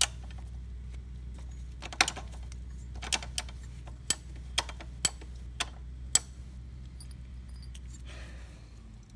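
Sharp metal clicks and taps of a motorcycle footpeg and its mounting hardware being handled and seated on the bracket, about nine at irregular intervals, bunched in the middle. A steady low hum sits underneath and fades near the end.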